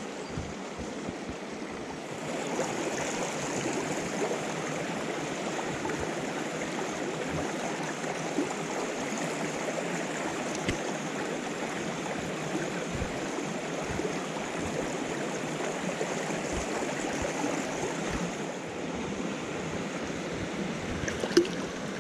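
Shallow rocky stream rushing and burbling over stones as a steady wash of water noise, which grows louder about two seconds in. A single sharp click near the end.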